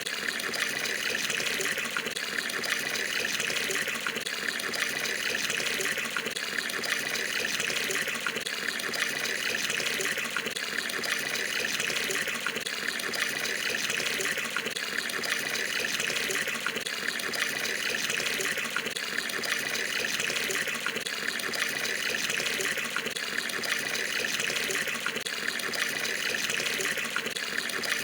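Water pouring steadily from a tap into a tub as it fills, a continuous splashing rush.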